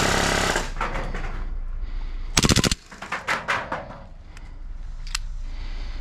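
Gas blowback gel blaster pistol (We-Tech IREX Hi-Capa 2011) firing full-auto bursts: one rapid burst right at the start, a louder short burst about two and a half seconds in, then a few scattered single shots.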